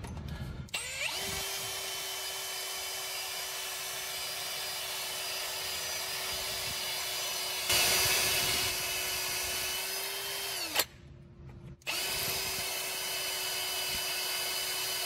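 Electric drill turning a multipurpose drill bit through a broken-off bolt in a flathead engine's head. The motor spins up about a second in and runs at a steady pitch, grows louder for about a second near the middle as the bit cuts harder, stops for about a second, then starts again and runs on.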